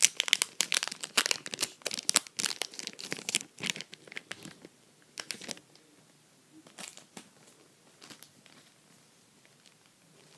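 A Pokémon card booster pack wrapper being torn open and crinkled: a dense run of crackling and tearing for about four seconds, then a few scattered rustles.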